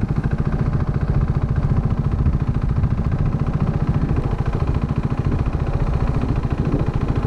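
Motorcycle engine running steadily, a fast even pulse of firing strokes with a deep low hum and no change in pace.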